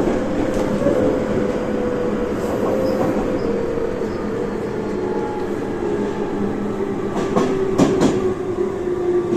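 Tobu 30000 series EMU heard from inside the car, its Hitachi IGBT VVVF inverter and traction motors giving a steady tone that falls slowly in pitch as the train slows, over the running rumble. A few sharp wheel clacks over rail joints come about seven to eight seconds in.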